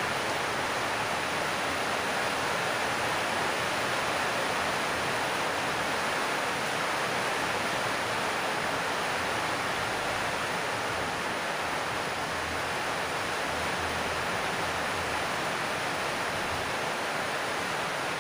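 A steady, even rushing hiss with no distinct knocks, tones or changes.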